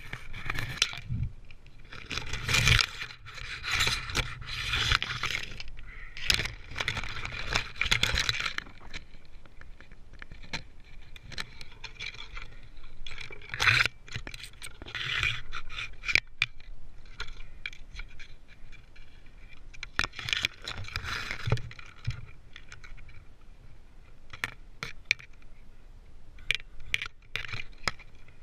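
Tree climber moving through a silver birch: irregular scraping and rustling against bark and branches, with sharp clicks and jingles of climbing gear.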